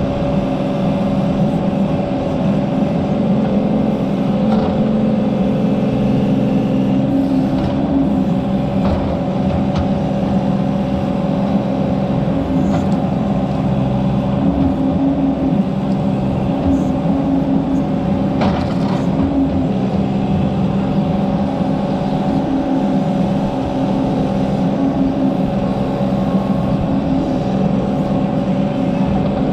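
Mini excavator's diesel engine running steadily with the hydraulics under load, its pitch wavering slightly as the bucket digs out a tree stump. A few faint knocks.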